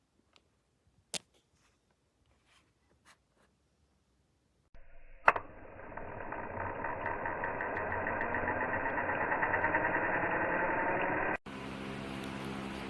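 A small electric motor, most likely the WEN rotary tool, switched on with a click and spinning up, its whine building over several seconds. After a sudden cut it runs at a steady speed.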